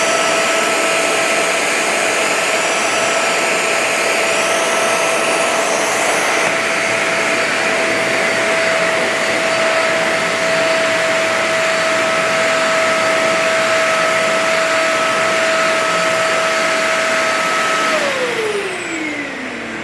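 Hetch standing vacuum cleaner running with a steady high motor whine. Near the end it is switched off and its pitch falls as the motor winds down.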